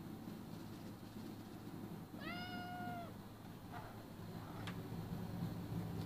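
Domestic cat meowing: one drawn-out meow about two seconds in, followed by a few faint rustles and a click.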